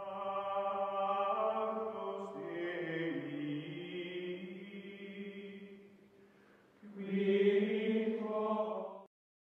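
Outro music of chanted voices in long held chords that step in pitch, fading away about six seconds in; a second chord then swells up and cuts off abruptly near the end.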